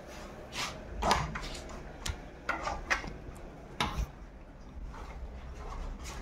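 A run of irregular knocks and clicks, about seven in the first four seconds, from footsteps and a wooden door being opened, over low handling rumble, then quieter.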